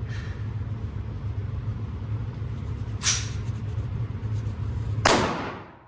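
Two pistol shots over a steady low rumble: a sharper, lighter report about three seconds in, and a louder one near the end that rings out briefly.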